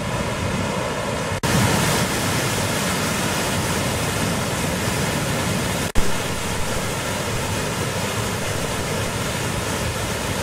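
Floodwater pouring through a dam's opened spillway gates: a steady rushing noise, broken by two brief dropouts, about one and a half seconds and six seconds in.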